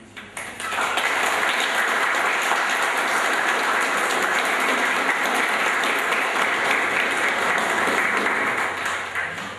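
Audience applauding: many hands clapping together. It breaks out sharply about half a second in, holds steady, and tapers off near the end.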